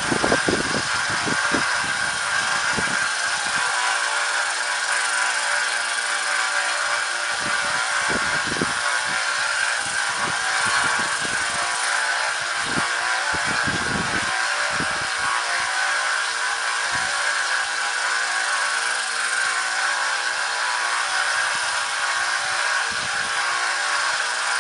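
A 1x30 belt grinder running with a 2,000-grit belt while a sword edge is held against it for sharpening: a steady whir with a constant high whine, unchanging throughout.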